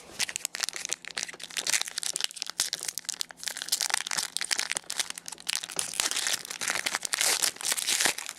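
Trading-card pack wrappers crinkling and rustling as hockey card packs are opened and the cards handled: a dense, continuous run of small crackles.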